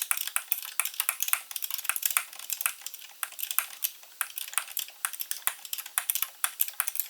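Socket ratchet clicking in quick, uneven runs as the nut on the rear ball joint of a car's front axle is run down and snugged.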